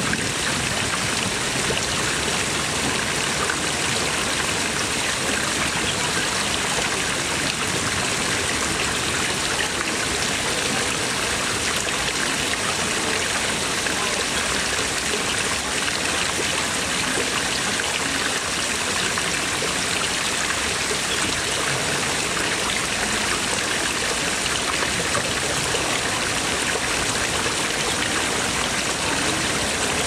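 Water jets from several carved stone dragon-head spouts pouring steadily into a pond, a continuous even splashing.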